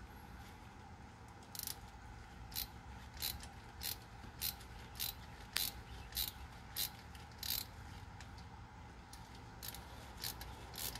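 Ratchet turning a thread tap in an aluminum intake plenum bolt hole, its pawl clicking slowly and evenly about every 0.6 seconds for about a dozen clicks, then a few fainter clicks near the end. It is the sound of threads being cut for a Helicoil insert.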